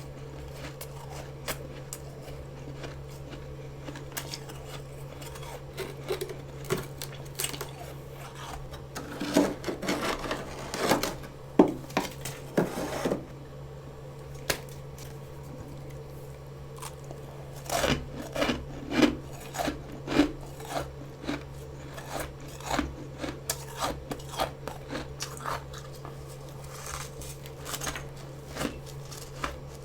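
Humidifier-grown freezer frost being bitten and chewed, with crisp crunches in two bouts, about nine seconds in and again about eighteen seconds in, over a steady low hum.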